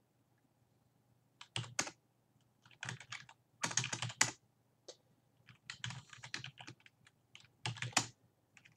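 Computer keyboard typing in about five short bursts of keystrokes with pauses between, starting about a second and a half in.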